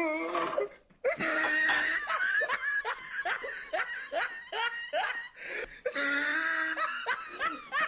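A person laughing hard in a long run of quick bursts, about two or three a second, starting about a second in.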